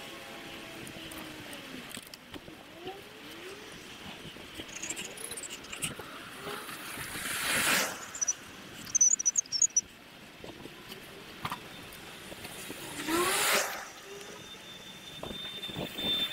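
Sped-up action-camera sound of a bicycle ride: a steady bed of wind and road noise, with two loud rushing swells that rise and fall, about seven and thirteen seconds in. A cluster of brief high chirps sounds around nine seconds, and a steady high whine starts near the end.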